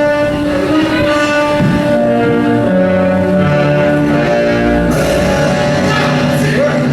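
Orchestral music led by bowed strings, playing long held notes that step to new pitches every second or so.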